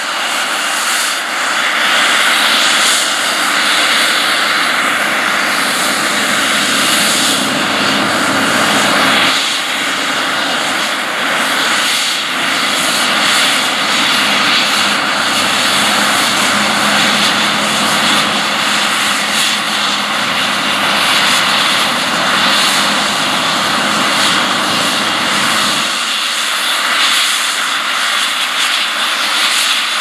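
Case IH 9230 Axial-Flow combine running steadily while cutting wheat with its draper header, a loud, even machine noise. The low rumble thins out near the end.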